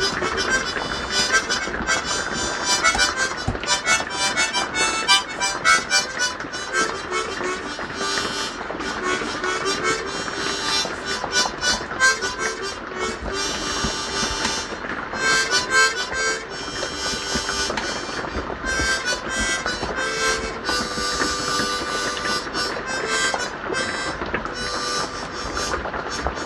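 Harmonica playing a tune, with held notes and chords changing throughout.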